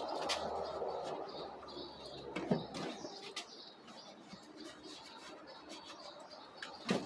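Birds chirping and cooing faintly, with scattered clicks and knocks from hand work; a low hum stops about three seconds in.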